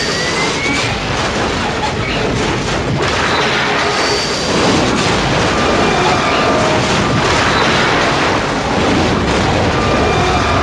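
Sound effect of a jet aircraft: a loud, continuous engine roar that grows a little louder about halfway through.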